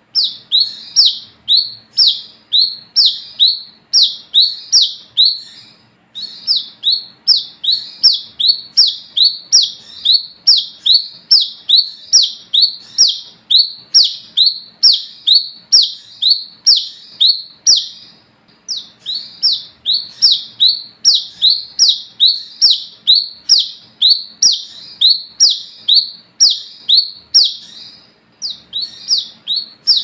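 Brown-throated sunbird (kolibri kelapa) calling a long run of sharp 'wiceh' notes, each a quick downward-sweeping whistle, about two or three a second with a few brief pauses. A faint steady hum lies underneath.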